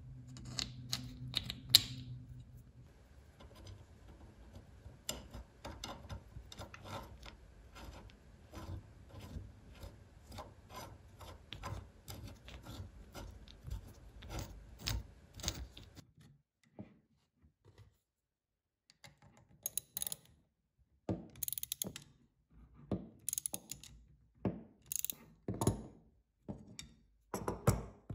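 Small clicks and taps of pump parts being handled as a rubber plunger cup and hex nut are fitted onto a hand air pump's threaded steel piston rod. A run of fairly even clicks fills the middle, then after a short pause come scattered, sharper clicks.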